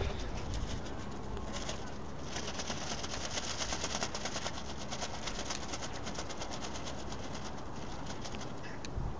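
Steady wind noise on the microphone at the water's edge: a low rumble under a constant hiss.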